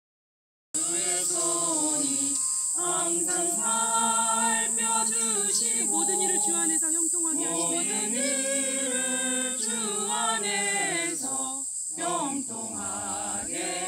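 A small mixed group of men and women singing together unaccompanied in slow, sustained phrases, with a brief pause for breath near the end, over a steady high insect drone.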